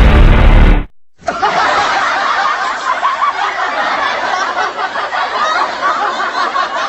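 Stock laugh-track sound effect: a crowd of people laughing and chuckling together, starting about a second in. Before it, a loud clip with a deep bass cuts off abruptly.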